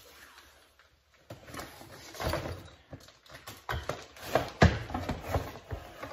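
A cardboard box is handled and opened, giving irregular knocks and rustles as it is set on a workbench and a plastic-wrapped bundle of chimney-brush rods is pulled out. The loudest knock comes about four and a half seconds in.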